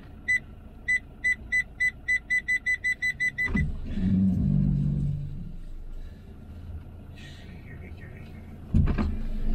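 Motorhome's rear parking sensor beeping, the beeps coming faster and faster as the van closes on a wall, then stopping about three and a half seconds in. The vehicle's engine rumbles low underneath, with a sudden louder rumble near the end.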